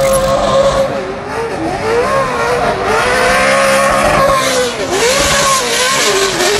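Drifting pickup truck's engine revving hard, its pitch dipping and climbing again several times as the throttle is worked, over the hiss of the spinning rear tyres.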